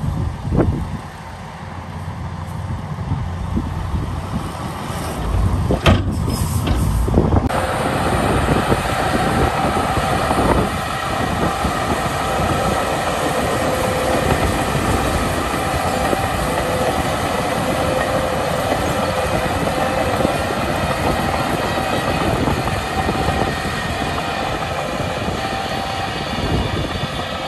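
A tipped dump truck's load of soil sliding off the bed, with a few knocks, then, about seven seconds in, a Shantui DH17 crawler bulldozer pushing soil: its engine running under load with a steady whine over the dense clatter of its steel tracks.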